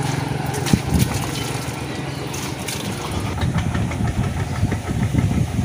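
Tractor engine idling with a low, steady hum under a noisy background, with a few sharp clicks and knocks.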